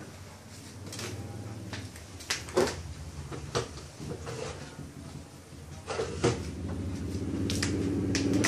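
A few sharp knocks and clatters of objects being handled and set down. A steady low hum runs underneath and grows louder near the end.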